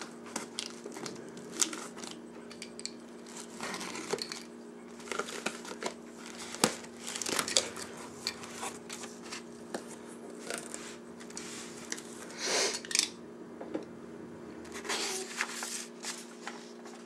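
Packing tape being peeled and torn off a cardboard shipping box, with the cardboard flaps scraping and rustling as they are pulled open, in irregular short rasps. A steady low hum runs underneath.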